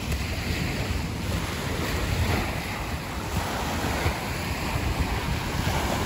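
Wind buffeting the microphone in uneven gusts, over a steady wash of small waves on a lakeshore.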